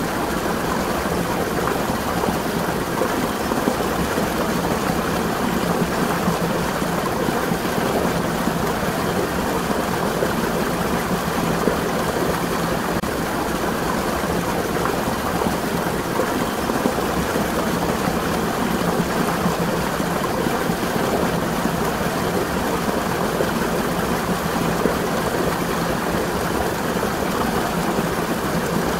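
Water running from a spring: a steady, even rush of flowing water.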